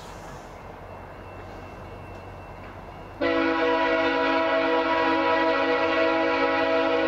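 Air horn of a VIA Rail F40PH-2 diesel locomotive on an approaching passenger train, one long chord of several notes that starts suddenly about three seconds in and is held steady; before it, only a low rumble.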